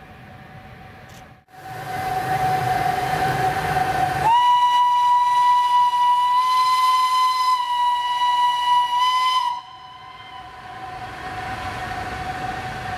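A vintage SBB electric locomotive's whistle sounds one long, steady blast of about five seconds as the loco runs by, over the locomotive's steady running noise and hum.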